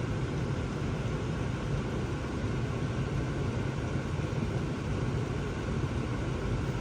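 Steady low hum of a switched-on car, even throughout, with no distinct events.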